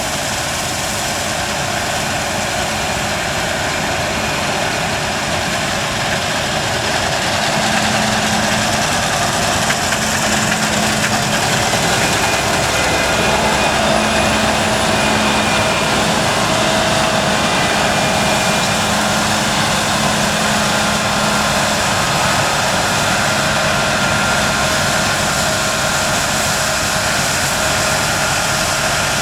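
Heavy harvest machinery running steadily, a big diesel engine with a whine over it, growing a little louder after several seconds.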